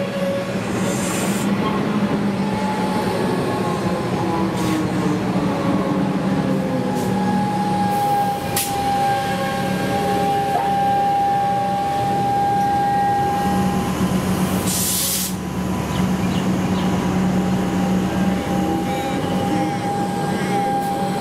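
Electric suburban train running alongside the platform: steady motor hum and whine with wheel and rail noise. A short burst of air hiss comes about 15 seconds in.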